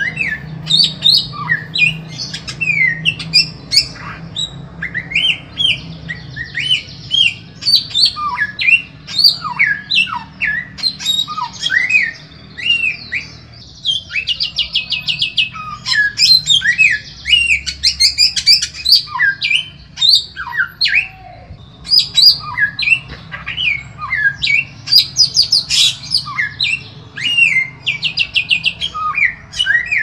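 Samyong bird singing a fast, unbroken song of sharp whistled notes, many sweeping down in pitch, mixed with stretches of rapid buzzy trills, over a faint low steady hum.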